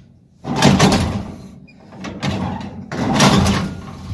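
A 1951 Ford E493A side-valve engine being turned over with a starting handle, firing in three loud bursts as it tries to catch on a hard cold start, with a low rumble near the end.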